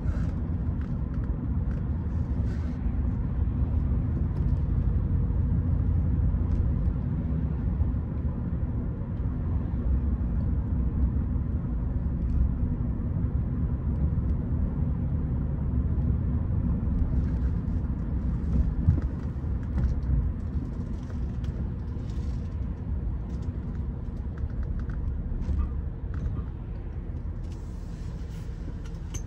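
A Rolls-Royce Silver Spirit on the move: a steady low rumble of engine and road noise. The rumble eases slightly near the end.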